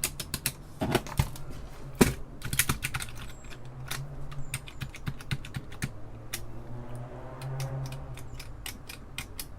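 Keys of an Apple II Plus keyboard being pressed and released repeatedly, a quick irregular run of plastic clicks and clacks, several a second.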